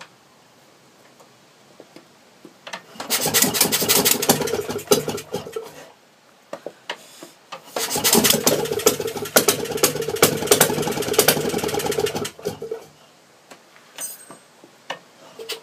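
Enfield flat-twin two-stroke stationary engine starting on a battery-and-coil ignition and running in two rapid, rattling bursts of about three and four seconds, each dying away.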